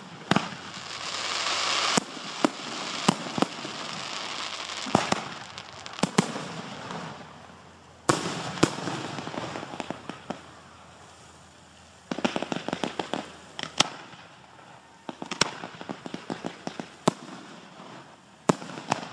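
Display fireworks going off: sharp single bangs of aerial shells bursting, with stretches of crackling hiss between them. In the second half, fireworks cakes fire quick volleys of pops, two bursts of rapid shots a few seconds apart.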